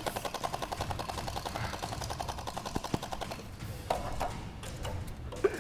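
A motorized Nerf blaster firing full-auto: a fast, even rattle of about ten shots a second that fades out about three and a half seconds in. A couple of single knocks follow near the end.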